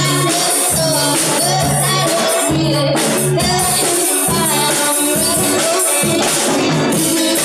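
Live rock band playing through amplifiers: a woman singing lead over electric guitars and a drum kit with cymbals.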